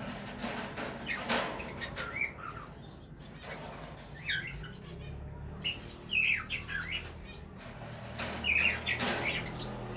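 Small cage birds chirping and squawking in clusters of short, high calls, several times over, above a low steady hum.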